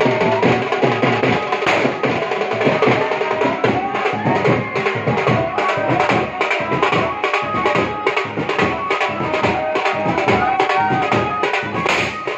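Folk drumming on hand-carried drums, a fast, even beat, with a wavering melodic line over it, played for a circle dance.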